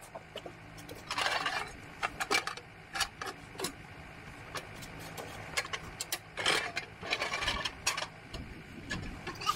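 Steel towing-dolly side bars being slid out and set to their widest setting: scattered metal clicks and clanks with a few short scraping bursts, over a faint steady low hum.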